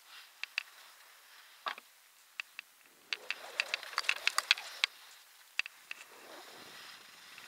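Skis scraping and hissing over snow on a descent, with scattered sharp clicks and taps. The scraping is densest and loudest in the middle, where the clicks come in quick clusters.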